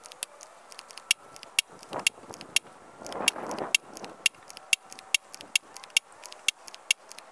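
Moderated Uragan Compact .177 bullpup PCP air rifle firing a rapid string of sharp shots, about three to four a second, the shot string played sped up.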